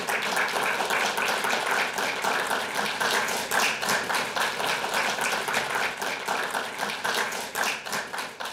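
An audience applauding: many hands clapping steadily in a small lecture hall.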